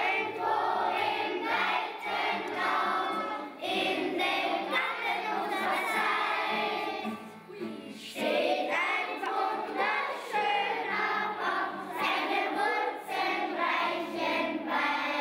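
A group of children singing together as a choir, with a short pause between phrases about halfway through.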